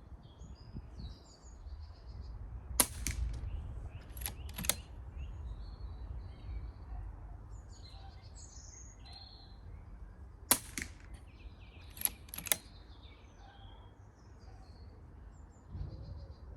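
Silenced Daystate Red Wolf PCP air rifle firing twice. Each sharp shot is followed about a second and a half later by two lighter clicks, over a low wind rumble on the microphone.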